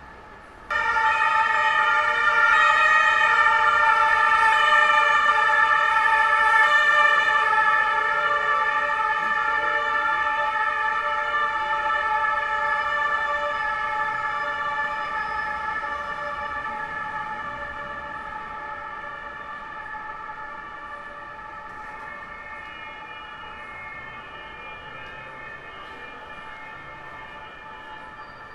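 German police siren sounding: a loud, steady sound made of several tones together that starts abruptly about a second in and slowly fades away.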